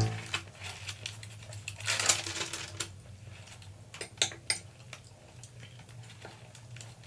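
Newspaper pages rustling, then a spoon clinking a few times against a cereal bowl, over a low steady hum.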